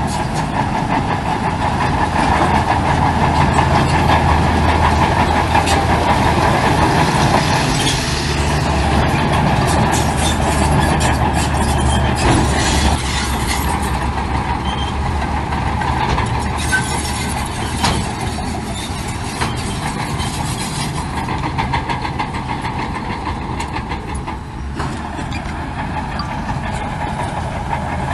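Heavy diesel earthmoving machinery running steadily, with scattered short knocks; louder for the first dozen seconds, then settling a little.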